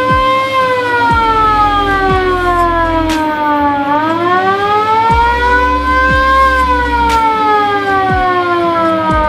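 Original roof-mounted siren of a 1971 VW Kombi (Type 2 bay-window) ambulance wailing, its pitch rising and falling slowly: high about half a second in, low about four seconds in, high again about six seconds in, then falling.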